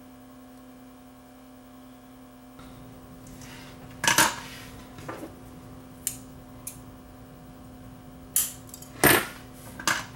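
Metal hand tools clinking and clattering on a workbench: a string of sharp clinks, loudest about four and nine seconds in, over a steady electrical hum.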